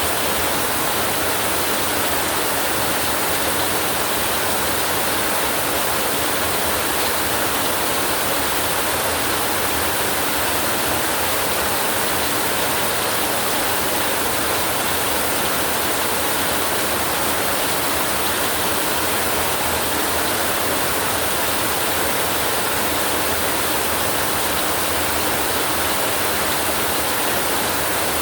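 Heavy rain falling steadily, an even hiss with no breaks or thunder.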